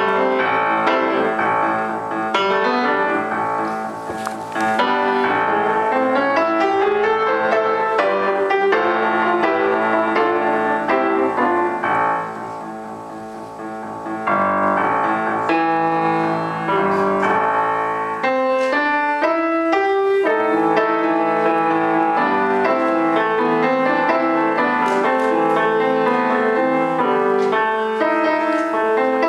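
Piano playing a composed piece with many quick notes, softening for a couple of seconds about twelve seconds in before returning at full strength.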